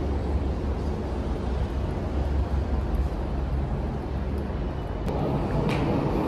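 Steady low rumble of an underground RER station, growing louder near the end as an RER A train approaches the platform.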